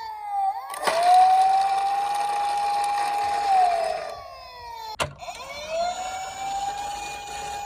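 Police car wail siren: the tone rises to a steady pitch, holds for about three seconds and falls away. After a sharp click about five seconds in it winds up again and holds, with a rushing noise underneath.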